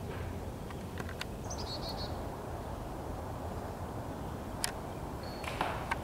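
Outdoor woodland ambience with a steady low rumble, a short quick run of high bird chirps about a second and a half in, and a few sharp clicks and knocks, the loudest near the end.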